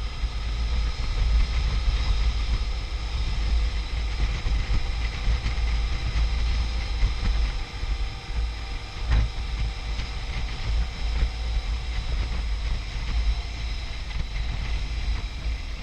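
Motorcycle riding sound: heavy wind rumble on the microphone over the steady running of a BMW R1150RT's boxer-twin engine at cruising speed, with one short knock about nine seconds in.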